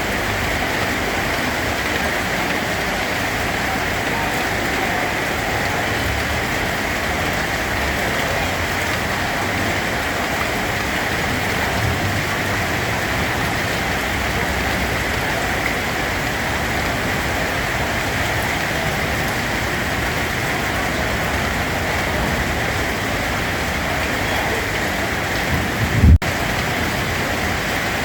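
Steady rain falling on a surface, an even hiss. Near the end comes a brief low thump, the loudest moment, followed by a split-second dropout.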